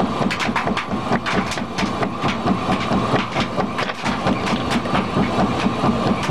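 Bagasse briquette press running under load as it extrudes briquette rods: a steady mechanical rumble and hum with rapid, irregular clattering and knocking.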